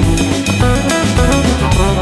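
Background music: an instrumental track with a drum kit playing a steady beat over guitar and bass.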